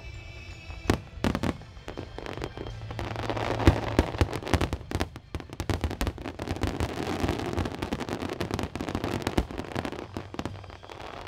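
Starmine fireworks display: a few sharp shell bursts about a second in, then a dense run of rapid bangs and crackling from about three seconds in that thins out near the end.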